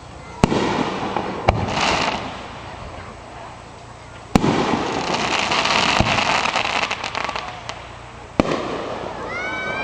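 Aerial fireworks shells bursting: about five sharp bangs, each followed by a long crackling spray.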